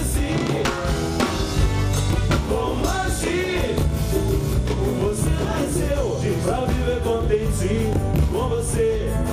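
Live samba-rock band playing, with a steady bass-and-drum groove under wavering melodic lines.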